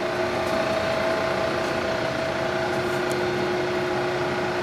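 Lansing Model G 16 x 40 engine lathe running steadily under power: an even hum and whine from its motor and gearing, holding one pitch throughout.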